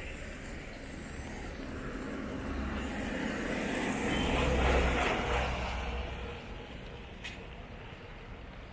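A motor vehicle passing on a wet road: its tyre hiss swells to its loudest a little before halfway through, then fades away.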